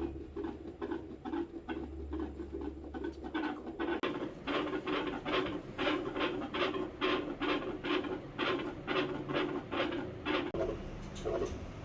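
A dog's heartbeat heard through a stethoscope: a fast, even run of beats, about three to four sounds a second, with a scratchy rubbing from the chest piece on the fur.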